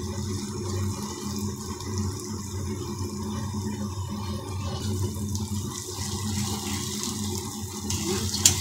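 Ground poppy-seed and melon-seed paste sizzling steadily as it is poured into hot oil in a wok. About eight seconds in, a metal spatula clinks once against the pan.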